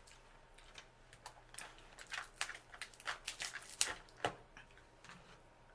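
Close-up eating sounds: irregular wet clicks and smacks of chewing and handling seafood-boil food, the sharpest two a little under four seconds in and just after four seconds.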